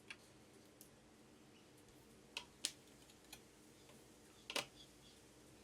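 Faint, scattered clicks and taps of small parts being handled as an M.2 NVMe SSD is fitted into a motherboard slot: about half a dozen short clicks, two of them louder, with near silence between.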